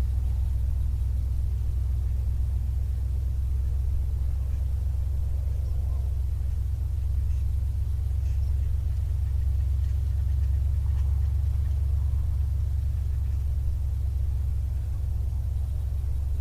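1964 Dodge Custom 880's big-block V8 running at a low, steady speed: a steady low rumble without revving.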